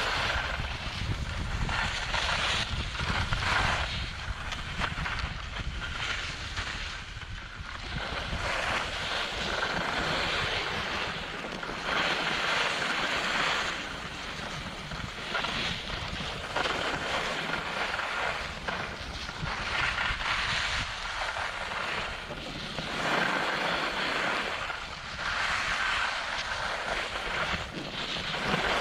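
Wind buffeting a GoPro's microphone while skiing downhill, with the hiss of skis scraping over packed snow that swells every couple of seconds as the skier turns.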